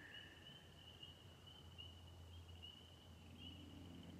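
Faint night crickets chirping in a steady, even rhythm, a few high chirps a second, over a low steady hum.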